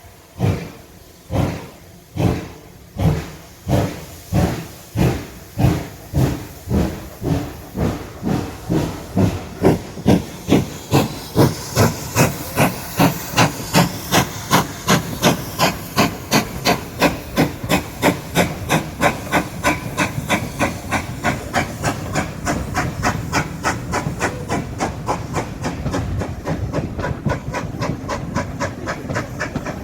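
Steam locomotive, the GWR Hall-class 4-6-0 4930 Hagley Hall, pulling away with a train. Its exhaust chuffs quicken steadily from about one a second to several a second as it gathers speed, with steam hissing between the beats.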